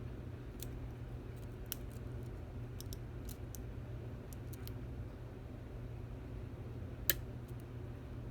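Faint scattered metallic clicks of a lock pick and tension wrench working the pins of a Stanley 24/7 padlock, with one sharper click about seven seconds in, over a steady low hum.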